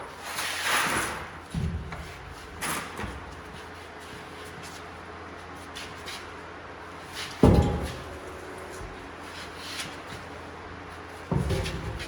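A few separate dull knocks and clunks over a steady low hum, the loudest about seven seconds in and another pair near the end.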